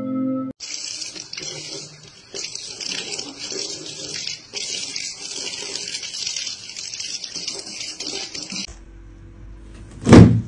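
Water running steadily from a kitchen faucet into a stainless steel sink, a hiss that stops abruptly at about eight and a half seconds. Near the end comes one loud thump.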